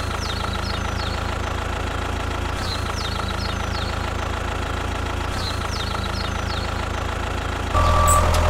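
Engine idling steadily with a low, even chug. Short falling bird-like chirps come in three brief groups, and near the end the engine sound steps up louder with a higher tone added.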